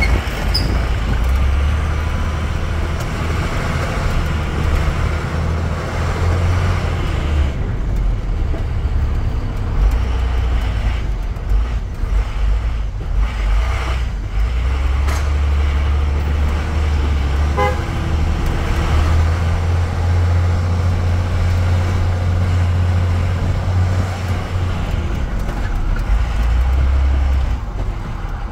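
Engine drone and road noise from inside a vehicle driving through busy city traffic, the low drone stronger and weaker by turns, with a car horn tooting.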